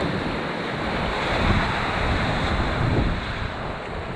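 Wind buffeting the microphone over the wash of surf breaking on a rocky shore, a steady rushing noise that swells slightly in the middle.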